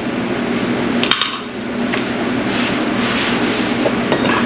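A metal tool or part clinks once against metal about a second in, with a short high ring after it, and a fainter tap follows; a steady hum runs underneath.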